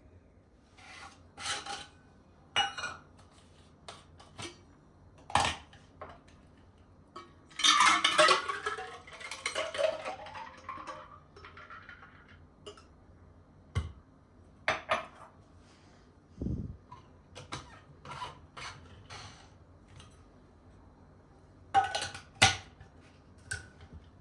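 Dishes and cutlery clinking and knocking as they are handled: a string of separate clinks and taps, with a longer, busier stretch of clatter about eight seconds in.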